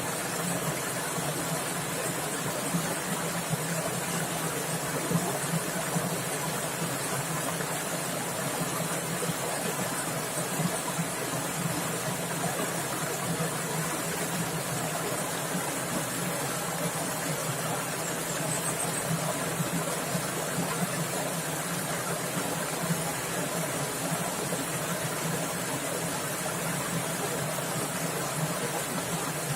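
Fast-flowing stream water splashing and rushing steadily.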